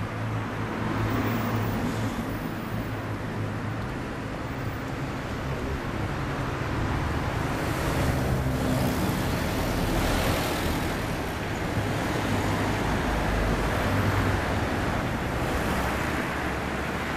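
Street traffic noise: cars and other motor vehicles running along the road in a steady rumble that swells a little as vehicles pass.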